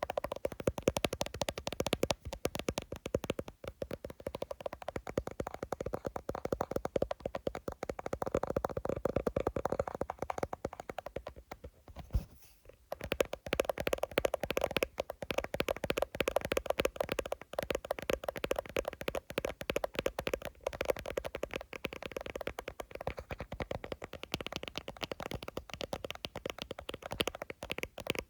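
Fingers tapping rapidly on an iPhone, a dense stream of quick clicks with a hollow ring, pausing briefly about twelve seconds in.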